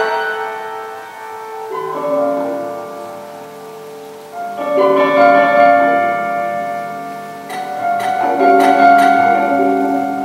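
Prepared grand piano, its strings fitted with screws, bolts, rubber and other objects, playing a slow passage. Groups of ringing notes are struck and left to die away, with new ones entering about two seconds in, just before halfway and again about three-quarters through.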